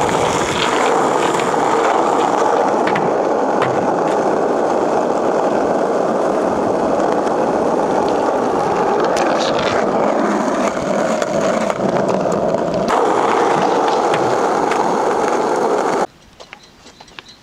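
Skateboard wheels rolling over rough asphalt: a loud, steady grinding rumble, with a few sharp clacks along the way. It cuts off suddenly near the end.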